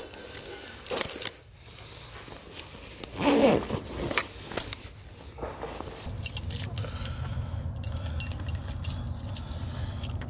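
A bunch of keys jangling and clinking as it is carried, with handling clicks and a dull thump about three seconds in. About six seconds in a steady low rumble starts, and the bright key clinks run on over it.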